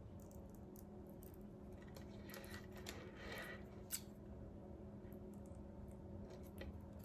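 Scissors snipping the ends of waist-bead strings: a few faint cuts about two to three and a half seconds in, then a sharp click, over a low steady hum.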